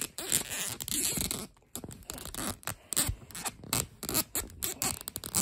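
Plastic parts of a toy Godzilla figure scraping and clicking against each other as the tail piece is forced at its socket, in an irregular run of short scrapes and clicks. The tail will not go in.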